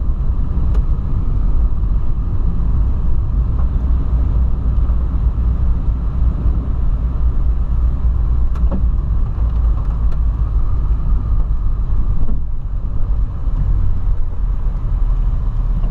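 Steady low rumble of a 2008 Volkswagen Polo sedan driving on a rain-wet road, heard from inside the cabin: engine and tyre noise together. A few faint clicks are heard now and then.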